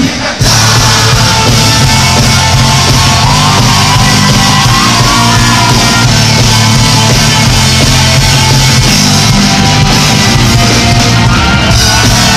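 Rock band playing live: loud, dense rock music with singing and shouting over it. The sound drops out briefly just after the start, then carries on.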